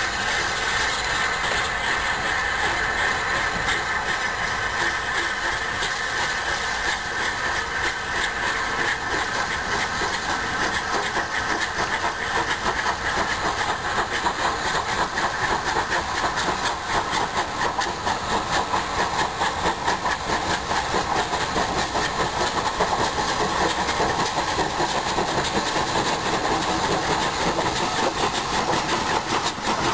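Two steam locomotives double-heading a train, working hard as they approach. Their exhaust beats come fast and even and grow more distinct through the second half, over a steady hiss of steam.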